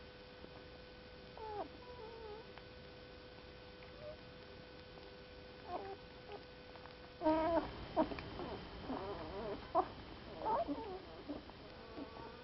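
A litter of nursing young animals giving short, high squeaks and mewls: a few scattered ones at first, then a flurry of overlapping squeaks from about seven seconds in.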